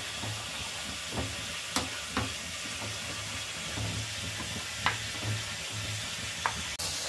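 A spoon stirring a thick yogurt-and-spice paste in a bowl, clicking against the bowl's side a few times, over a steady sizzling hiss of frying.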